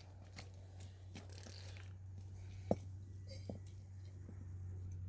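Scattered light clicks and crunches, the sharpest about two and a half seconds in and another a second later, over a steady low hum.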